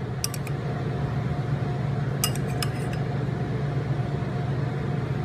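Metal spoon clinking against a ceramic bowl as dressing is spooned out: two light clinks just after the start and three or four more about two to three seconds in, over a steady low hum.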